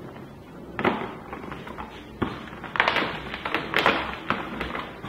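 Knocks, taps and rustling as a mounted Raspberry Pi board and its network cables are fitted into a one-unit rack-mount enclosure: a knock about a second in, another a second later, then a quick run of clicks and rustles.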